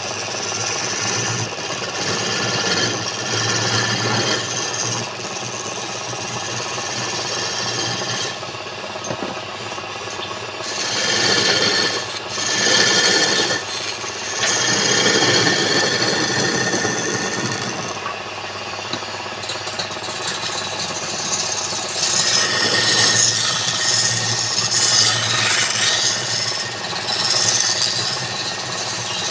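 A turning tool scraping and cutting a piece of wood spinning on a woodturning lathe. It is a continuous rasping sound that swells and eases as the tool is pressed in and drawn back.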